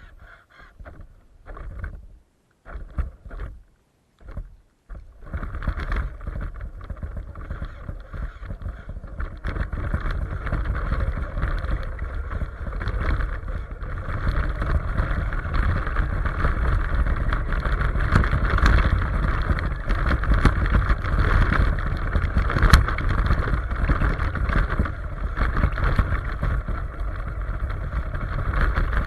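Radio-controlled truck running on snow: a few short bursts at first, then from about five seconds in it runs steadily without a break.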